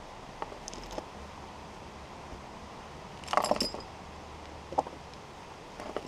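Steel log chain clinking as it is handled and hooked around a log for towing: a few light clinks, then a short burst of rattling about three seconds in, and one more clink near the end.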